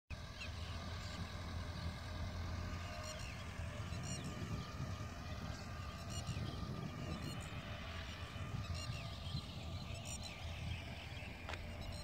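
Outdoor field ambience: birds chirping in short repeated calls over a steady low rumble.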